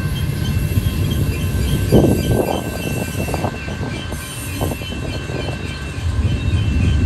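Union Pacific freight train of tank cars and boxcars rolling down a steep grade: a steady low rumble with a thin, steady high squeal from the wheels, briefly louder about two seconds in.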